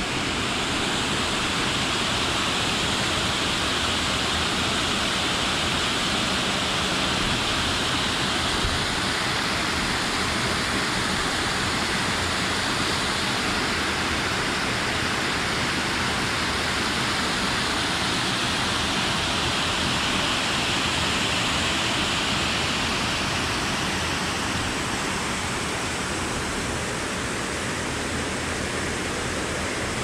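Small waterfall rushing steadily over a stone ledge into a river pool, a continuous splashing roar of water that eases slightly near the end.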